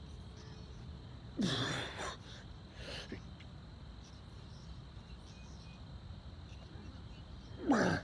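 A man's forceful grunting exhales from the effort of push-ups, each a breathy voiced push that falls in pitch: one about a second and a half in and another at the end, with a softer breath in between.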